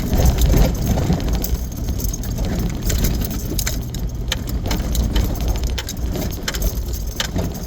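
Vehicle driving over a rough dirt road: a steady low rumble of engine and tyres with constant rattling and small knocks from the bumps.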